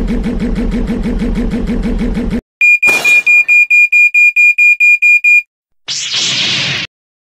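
Sound effects: a steady pulsing hum for a speeder's engine, cut off by a loud, high electronic alarm beeping about five times a second for about three seconds, with a brief whoosh near its start. The bank alarm is followed by a short, noisy whoosh of about a second.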